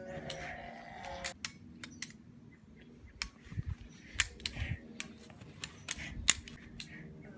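Toy rifles being fired, an irregular run of sharp clicks and snaps, loudest about four and six seconds in.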